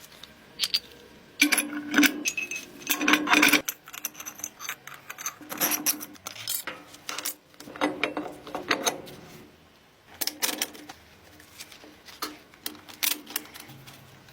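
Restored noodle machine being worked, giving irregular clusters of light metallic clicks and clinks with a short hum between some of them.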